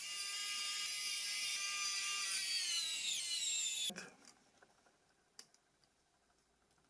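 Small high-speed electric tool motor whining steadily for about four seconds, its pitch sagging just before it cuts off abruptly; a few faint clicks follow.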